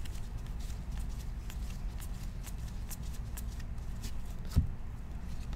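A stack of cardboard baseball trading cards being flicked through by gloved hands, making light papery ticks several times a second. There is one dull thump toward the end.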